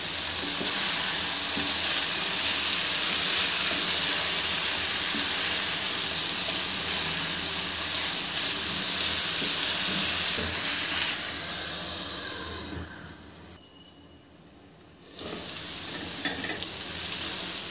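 Cauliflower florets in spiced masala sizzling in a non-stick frying pan as they are stirred with a wooden spatula. The steady sizzle fades about two-thirds of the way through, almost drops out for a moment, then comes back.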